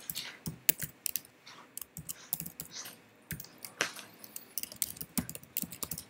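Typing on a computer keyboard: quick, irregular key clicks, with a short pause about halfway through.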